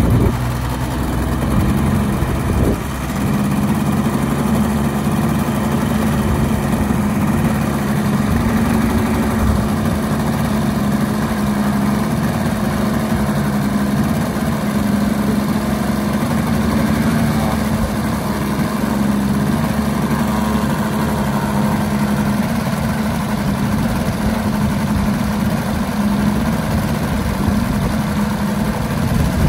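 Desert Aircraft DA-200 four-cylinder boxer gasoline engine of a large RC aerobatic plane idling steadily on the ground, just after being started by flipping the propeller.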